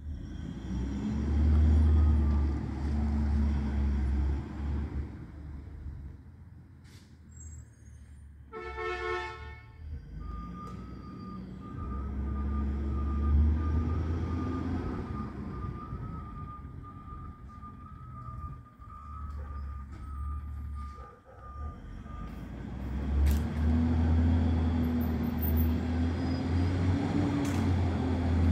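Garbage truck engine revving up and settling back several times as it works the street, with a brief horn toot about nine seconds in and a steady high whine lasting about ten seconds after it.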